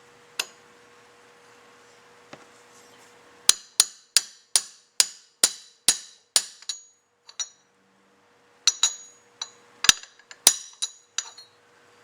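Hammer tapping a punch to peen over the rivet that holds a valve in a Carter dual-action fuel pump's vacuum casting: sharp, ringing metallic taps in two runs of about three a second, with a short pause between.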